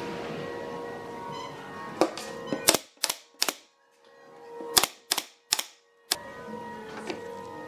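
Pneumatic brad nailer firing nails into pine boards, eight sharp snaps in two quick runs of four with a short pause between.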